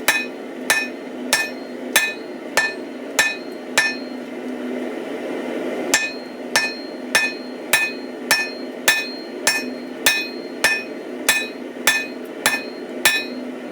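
Hand hammer striking steel on an anvil for forging, about one and a half to two blows a second, each blow followed by a short metallic ring. A run of seven blows, a pause of about two seconds, then a longer run of about a dozen, over a steady low hum.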